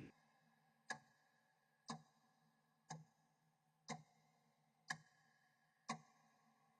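Steady ticking like a clock: one short, sharp tick each second, six in all, over a faint steady hum.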